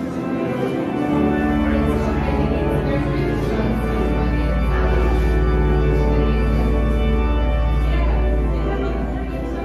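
Pipe organ playing sustained chords, with a deep bass note coming in about a second in and fading near the end.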